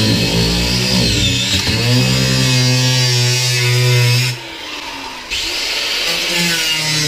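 Corded angle grinder with a cutting disc running and cutting into a wooden floor panel, a steady whine that dips briefly in pitch about a second in. It stops for about a second around four seconds in, then starts again.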